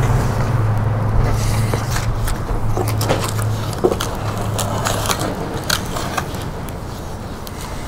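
Packaging being handled and opened: scattered scrapes, rustles and clicks over a steady low hum.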